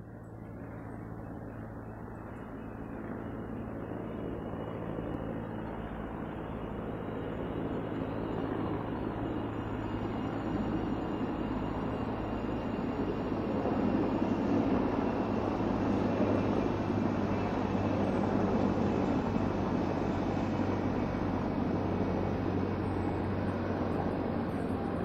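Military helicopter running, a steady low drone under a dense noise, with a faint high whine. It grows louder over the first half and then holds steady.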